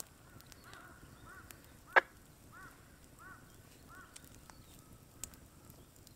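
A bird calling over and over in short, faint, arched chirps, about one and a half a second, with a single sharp crack about two seconds in.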